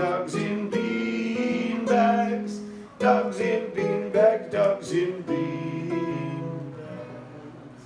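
Acoustic guitar strummed in a steady pattern, ending on a final chord about five seconds in that rings out and fades away.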